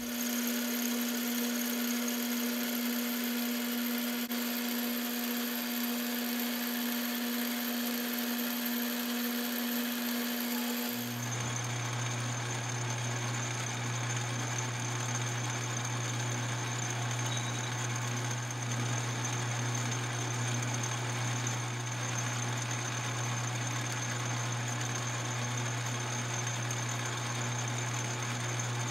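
Metal lathe running steadily while machining an aluminum hex bar, with a steady motor and gear hum. About eleven seconds in the hum changes abruptly to a lower pitch.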